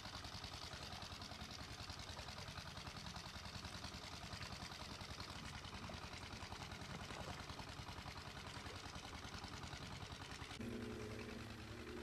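A small engine running in the field with a fast, even chugging. Near the end a steadier engine hum with a clear low pitch takes over.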